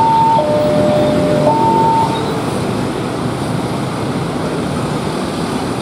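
Railway level-crossing alarm sounding its two-tone electronic warning, switching between a high and a low note about once a second, then cutting off about two seconds in. Steady noise of motorcycles and road traffic continues under it.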